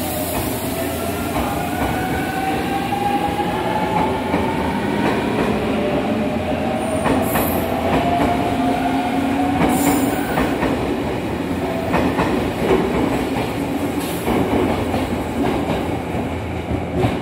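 JR Central 383 series limited express Shinano electric train pulling out along the platform. Its traction-motor whine climbs slowly in pitch as it gathers speed, with brief wheel squeals and clacks of the wheels over the rail joints.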